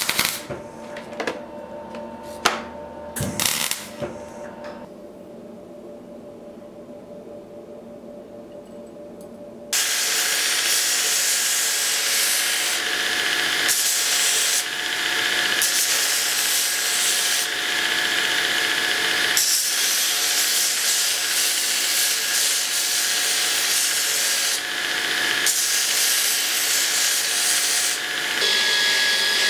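A few short crackling bursts of MIG welding tacks, then about ten seconds in a belt grinder starts grinding a small steel piece: a loud, continuous hissing grind over the steady hum of the motor, dipping briefly several times as the piece is lifted and pressed again.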